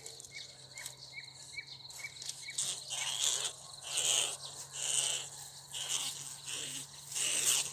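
Insects chirping in repeated pulses, with a run of short, evenly spaced high chirps in the first couple of seconds.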